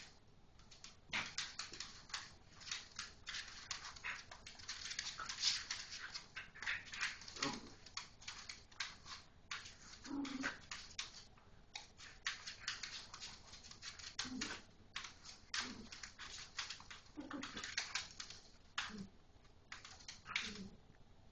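Two small dogs play-wrestling on a laminate floor: a dense, irregular clatter of claws clicking and scrabbling, with a few short low play growls or grunts scattered through.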